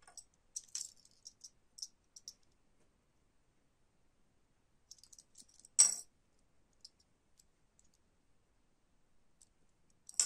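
Metal pin-back button badges clicking against each other in the hand, then set down on a wooden desk: one sharp clack about six seconds in and another near the end.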